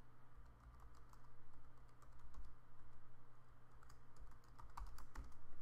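Typing on a computer keyboard: scattered key clicks, with a quick run of them near the end, over a low steady hum.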